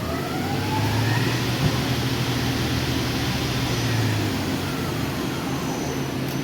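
YCM NTC-1600LSY CNC lathe running a dry cycle: a steady machine hum with a faint whine that rises in pitch in the first second and falls again near the end.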